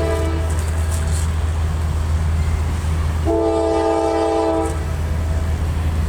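Diesel freight train's horn sounding a chord: one blast ending just after the start, and a second blast of about a second and a half from about three seconds in, over the steady low rumble of the passing train.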